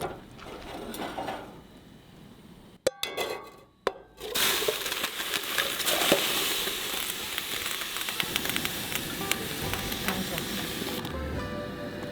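Food sizzling and spitting on a hot cooking surface, a dense hiss dotted with small crackles. It starts about four seconds in and fades out about a second before the end, with background music before and after.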